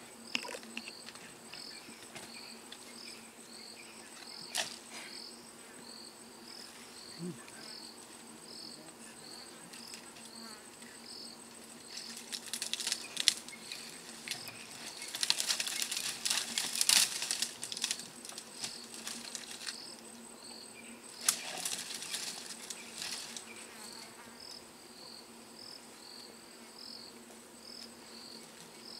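An African elephant feeding in bushes, with bursts of rustling and crackling twigs, loudest about halfway through and again a little later. Insects chirp steadily throughout, a high chirp repeated about twice a second.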